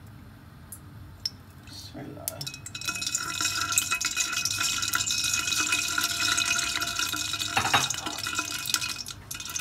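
Cooking oil poured into a stainless steel pot, then a steady hiss with a faint hum that sets in about two and a half seconds in.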